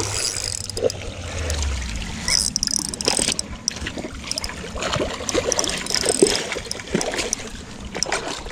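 Water splashing and sloshing in irregular short bursts as a hooked carp is brought in and netted at the river's edge.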